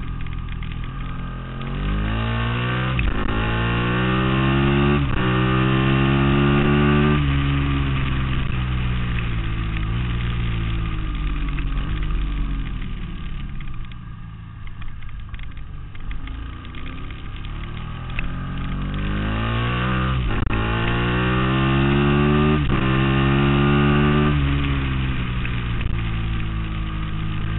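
Ducati Monster S4Rs's L-twin engine at racing speed. Twice it accelerates hard, climbing in pitch through quick upshifts, then falls as the throttle closes for the next corner.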